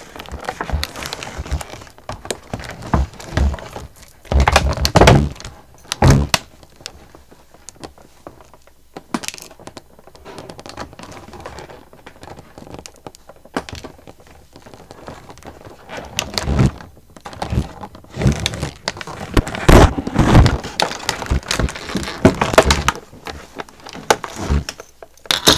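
Clear plastic toy packaging crinkling and rustling in irregular bursts as it is pulled and cut open with scissors, with a few thunks as the plastic doll case is handled.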